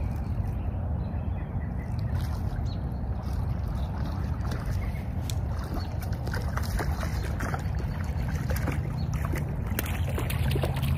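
A hooked bullhead splashing at the pond's surface as it is reeled in, with short sharp splashes and clicks coming thicker in the second half, over a steady low rumble.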